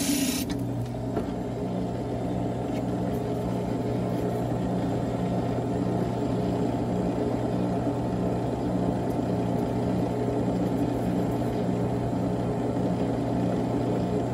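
Benchtop drill press motor and spindle running free with a steady hum and a slow, regular pulsing beat. A short rasping cut into a clay poker chip dies away in the first half second.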